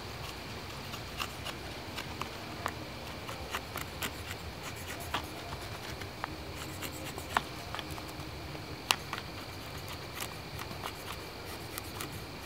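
Steel blade of a Farson hatchet shaving thin curls off a wooden stick to make a feather stick: a string of short, irregular scraping strokes with light clicks as the edge bites, one sharper click a little past the middle.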